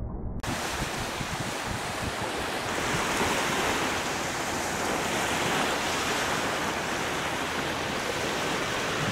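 Steady rush of surf, with wind buffeting the microphone.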